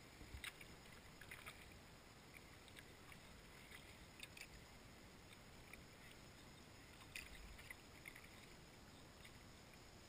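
Near silence with faint sounds of a small boat being rowed along a calm river: a few light, irregular ticks and knocks, about four in ten seconds.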